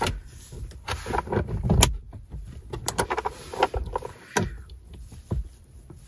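Plastic glove box door of a 1987 Nissan Pulsar being pressed shut, with a string of irregular sharp clicks and knocks as its 3D-printed latch catches bump the opening, catches that are thought to stick out too far.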